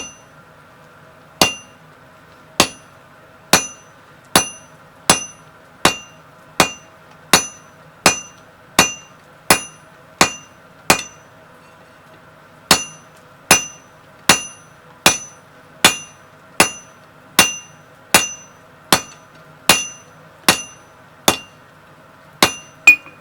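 Blacksmith's hammer striking hot 15 mm round steel bar on an anvil, drawing out a taper: a steady run of about 28 ringing blows, a little more than one a second, with one short pause midway. A faint steady hum sits underneath.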